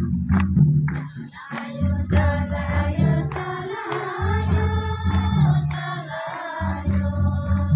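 Group of voices singing a Kurukh bhajan over a steady beat, with bright percussion strikes about two or three times a second and a strong low bass.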